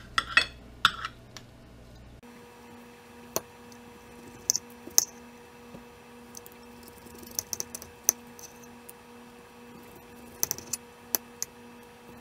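Knife and carving fork clicking and scraping against a ceramic plate as a pork roast is sliced: scattered sharp clicks and short scrapes, some in quick clusters.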